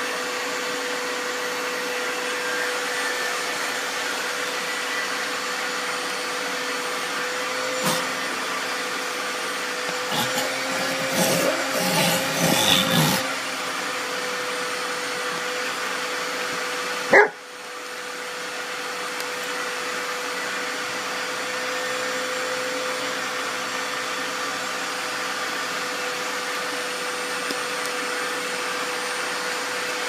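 Vacuum cleaner motor running steadily with a constant hum while a Saint Bernard puppy licks and mouths the end of its hose. For a few seconds about a third of the way in the puppy whines, and a little past halfway there is a single sharp knock.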